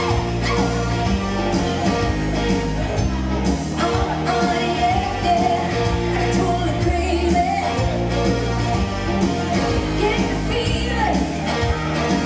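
Music with a singer over a bass line that steps from note to note, at a steady, loud level.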